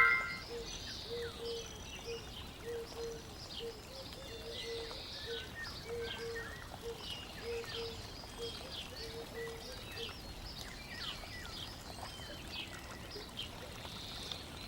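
Faint nature ambience: small birds chirping over trickling water. A soft low note repeats about twice a second for most of it, and a chime fades out at the very start.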